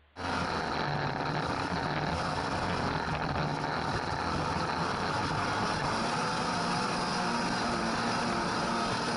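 Snowmobile engine running steadily at speed, with rushing wind noise, cutting in abruptly at the start.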